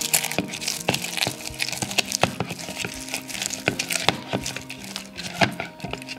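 A spoon mixing a thick miso paste with dried seaweed and radish in a glass bowl: irregular clicks, taps and scrapes of the spoon against the glass and the sticky paste, several a second. Quiet background music plays underneath.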